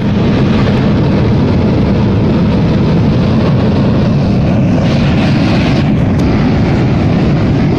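Steady, loud roar of Mount Bromo's active crater venting gas, starting abruptly and holding an even level throughout.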